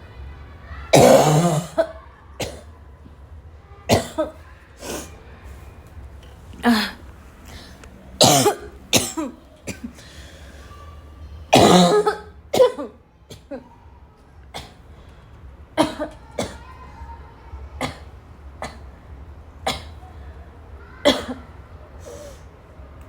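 A girl coughing again and again in a coughing fit: single coughs and short runs of two or three, the loudest and harshest about a second in and about halfway through, lighter ones after that.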